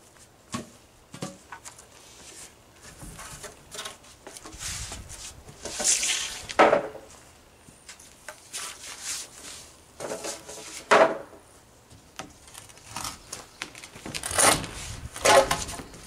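Wooden planks knocking and clattering against each other as they are picked up and dropped onto a pile: a series of separate wooden knocks with a short ring, the loudest about six and a half and eleven seconds in, then two more near the end.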